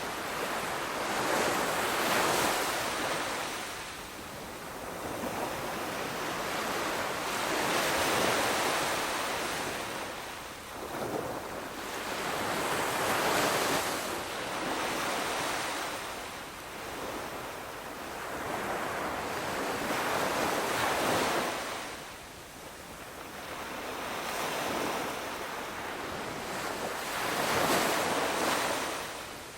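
Ocean waves breaking and washing onto a shore, a surge of surf about every six seconds.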